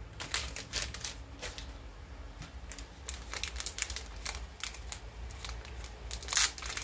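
Small clear plastic bag crinkling as it is handled and pulled open by hand: an irregular run of short, sharp crackles, loudest near the end.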